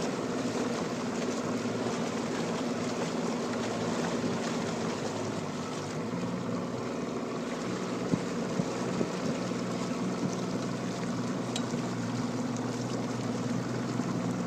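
Boat motor running steadily at a low hum as the boat pushes through dense lake weed, with a steady wash of water noise.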